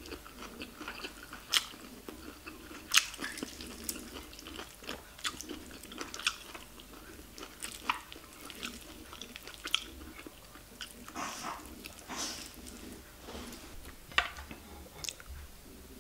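A person chewing and eating rice, fried egg and stir-fried greens by hand, close to the microphone: a steady run of irregular sharp mouth clicks.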